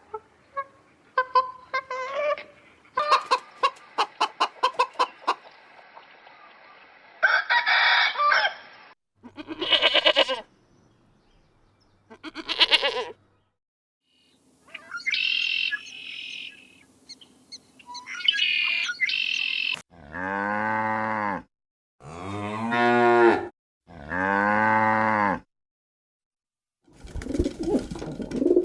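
A run of farmyard animal calls: chickens clucking in quick short calls, then several separate high crowing calls, then a cow mooing three long times in a row.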